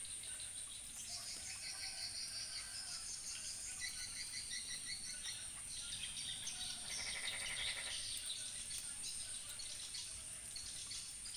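A chorus of frogs calling in the rain: many fast pulsing trills overlap, with one louder pulsed croak about seven seconds in, over a steady high-pitched whine.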